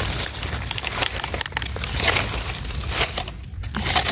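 Dry fallen leaves crackling and rustling in irregular bursts as a hand reaches into the leaf litter and plucks mushrooms from the ground, with a short quieter pause near the end.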